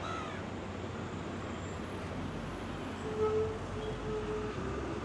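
Road traffic passing: a steady hum of engines and tyres, with a brief held tone about three seconds in.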